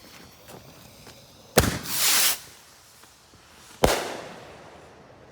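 Consumer fireworks going off: a sharp bang about a second and a half in, followed by about half a second of loud hissing crackle. A second loud bang with a long echoing tail comes near four seconds in.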